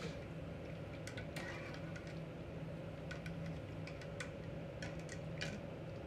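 Scattered light clicks and taps, irregular and a few to the second, over a steady low hum.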